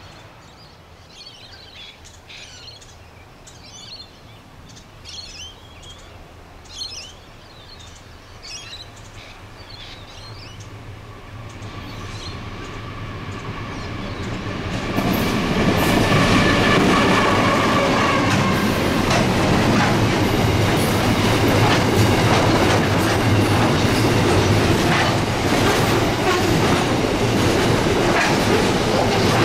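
A single GL class diesel-electric locomotive approaches and runs past hauling an intermodal container train, loud from about halfway through. Then the container wagons roll by with a steady clickety-clack over the rail joints and some wheel squeal. Faint high chirps are heard before the train arrives.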